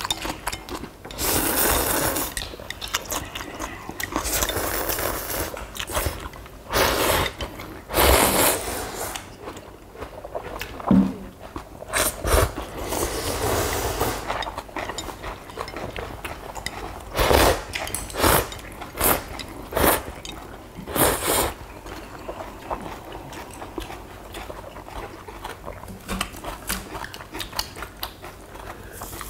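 People eating ramen noodles and kimchi: chewing and biting in repeated noisy stretches of a second or two, with short knocks and scrapes of utensils against the dishes.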